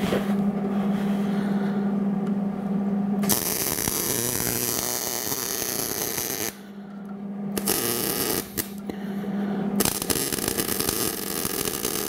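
Electric arc welding: two runs of crackling, sizzling arc, one from about three seconds in to six and a half seconds, the second starting about ten seconds in. Between the runs a steady low hum is heard.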